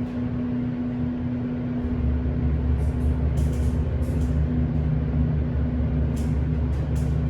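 Passenger elevator starting and travelling, with a steady hum of its machinery and a deeper rumble setting in about two seconds in as the car gets under way. A few light clicks sound over the hum.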